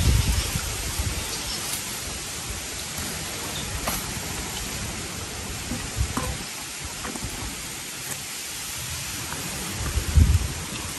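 Steady outdoor background hiss, with wind buffeting the microphone at the start and again near the end, and a few faint clicks.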